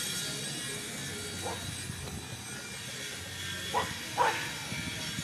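Dogs barking in short single barks: a faint bark about a second and a half in, then two louder barks close together near the end, over a steady low background noise.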